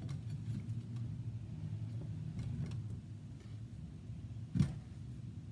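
A steady low hum, with one sharp knock about four and a half seconds in as a chunk of kabocha squash is set down in a glass baking dish.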